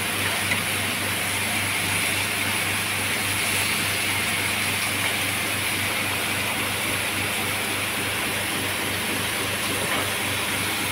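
Beef ribs sizzling steadily in a hot cast-iron grill pan, with a low steady hum underneath and a brief tap about half a second in.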